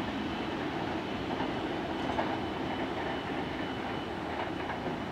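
Tokyo Metro 03 series electric train running away on the rails, a steady rolling rumble of its wheels that slowly fades as it recedes.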